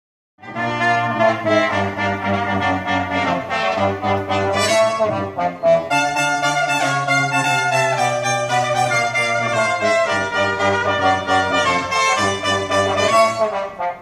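Brass-band music with trumpets and trombones, played through a Toyota Avanza's aftermarket EMMA CD head unit and speakers as an audio system test. It starts about half a second in.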